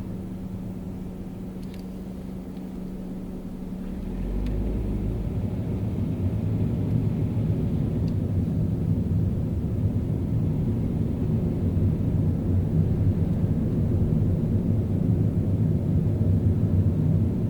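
Car engine holding a steady hum while stopped, then about four seconds in the car pulls away. Engine and road rumble rise and settle into steady driving noise.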